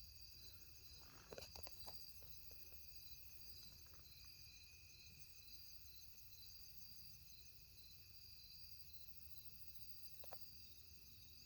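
Faint, steady evening chorus of crickets and other insects, with trills and an evenly pulsing chirp. A few soft knocks come about a second and a half in and again near the end.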